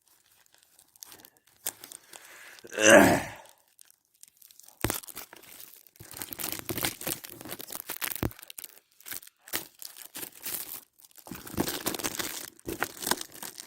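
Plastic shrink wrap being torn and crinkled off a Blu-ray case, a continuous crackling rustle with many small snaps that thickens near the end. A single loud breathy sound comes about three seconds in, before the tearing starts.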